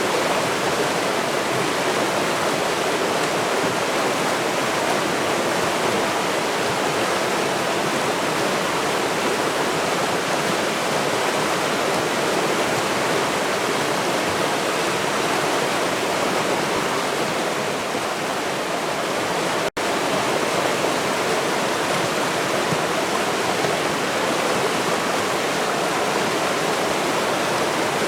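River water rushing steadily, a dense, even wash of flowing-water noise. It cuts out for a split second about two-thirds of the way through.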